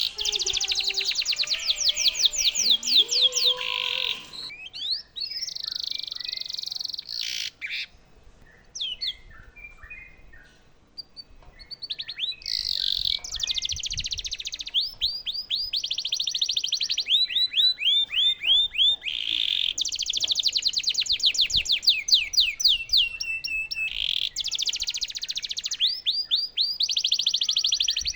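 Domestic canary singing: long rolling trills of fast repeated notes, each a quick downward sweep, with a few seconds of sparser, softer chirps in the middle.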